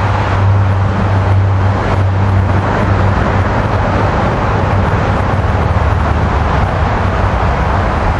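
Steady jet roar from an Emirates Airbus A380's four engines on its take-off climb, still some way off, with a low steady hum beneath it.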